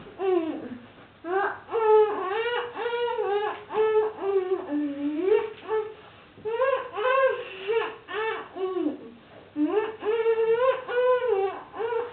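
A child's high voice singing a tune without accompaniment, in phrases broken by short pauses.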